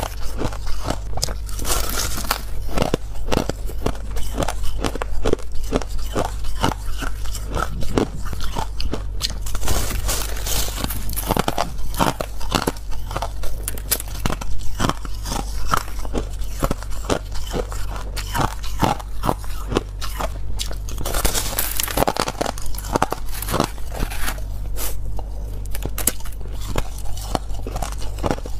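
A person biting into and chewing clumps of packed white shaved ice close to the microphone: a steady run of crisp, crackly crunches.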